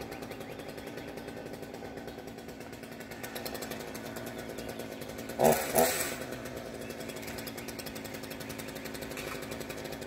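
Engine idling steadily with a fast even pulse. About five and a half seconds in come two short, sharp, loud sounds a few tenths of a second apart.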